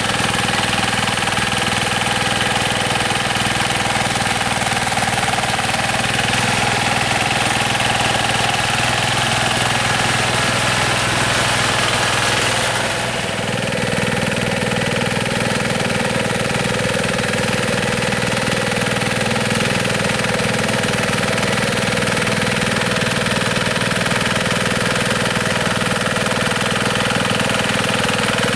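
Yanmar TF105 single-cylinder horizontal diesel engine of a two-wheel hand tractor running steadily. About halfway through it briefly drops in loudness and its tone shifts, then carries on steady.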